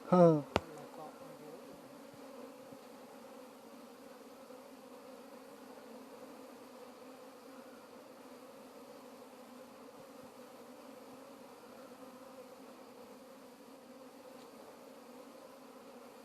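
Honeybees buzzing in a steady, even hum from a colony. A brief voice and one sharp click come right at the start.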